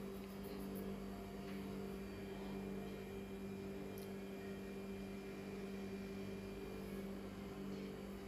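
Steady low electrical hum with a few faint, scattered clicks; no pestle strokes on the stone mortar stand out.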